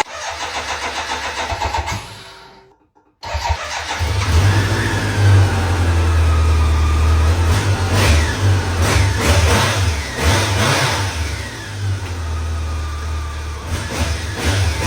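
Motorcycle engine cranking on the starter with rapid pulses, falling silent briefly, then catching and running, revved up several times. Several sharp pops come in among the revs: backfires, which the owner credits with blowing clear a blocked fuel return line.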